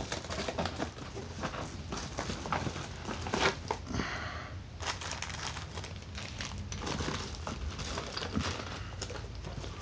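Plastic packaging being handled: irregular crinkling and rustling with small clicks and knocks throughout.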